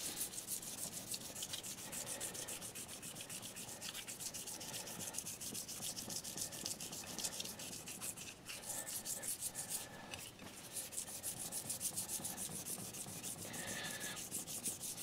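Micro-Mesh 2400-grit abrasive sheet rubbed by hand over a cured epoxy patch on a glazed ceramic plate, in short repeated strokes pressed in one direction only. This is the buffing stage that takes the orange-peel texture out of the fill and levels it flush with the glaze.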